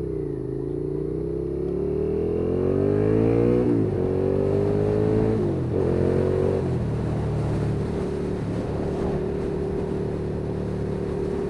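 Suzuki SFV650 Gladius's 650 cc V-twin through an aftermarket IXIL twin silencer, accelerating hard. The engine note climbs, drops at upshifts about four and five and a half seconds in, then holds a steady pitch at cruising speed for the second half.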